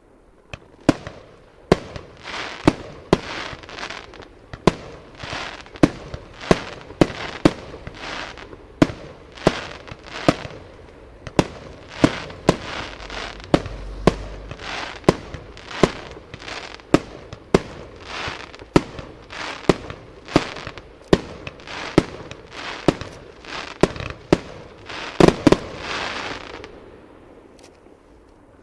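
Aerial fireworks shells bursting in quick succession, a sharp bang every half second to second with crackling between. A louder cluster of bursts comes near the end, then the barrage stops.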